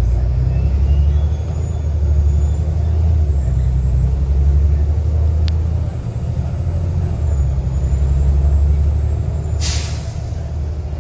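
Volvo B7TL bus's turbocharged six-cylinder diesel engine running, with a faint high turbo whistle that wavers slightly in pitch. About ten seconds in, a short sharp hiss of released brake air.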